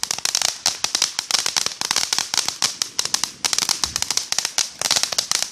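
Ground fountain firework spraying sparks, crackling with a dense, unbroken run of rapid sharp pops.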